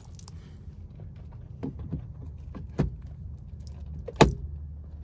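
A steering wheel being fitted onto the steering column, with tools handled: a few sharp clicks and knocks, the loudest about four seconds in, over a low steady hum.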